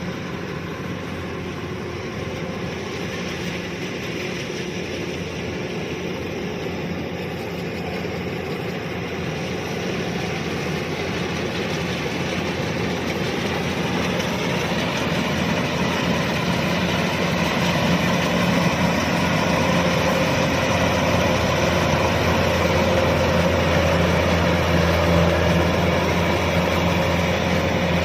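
Kubota DC-105X combine harvester running with a steady mechanical hum. It grows louder over the first two thirds of the stretch, then holds level.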